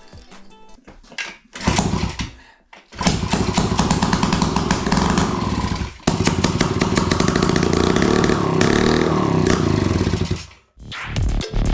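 Restored Minsk motorcycle's single-cylinder two-stroke engine catching briefly and dying, then starting again and running steadily for several seconds before cutting off near the end. Background music fades out at the start and comes back in near the end.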